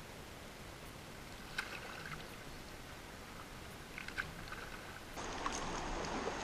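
Kayak paddling on a river: a few light paddle splashes and drips over faint water noise. About five seconds in, the water noise turns louder and busier.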